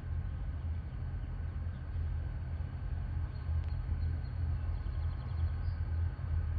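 Diesel freight train running with a steady low rumble and a faint steady mechanical hum above it.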